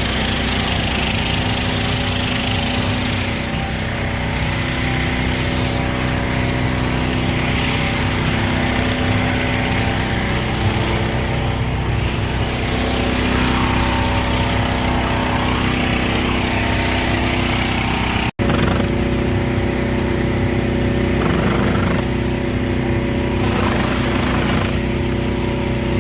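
Small petrol engine running steadily at a constant speed, with a hiss of noise over it; the sound cuts out for an instant about two-thirds of the way through.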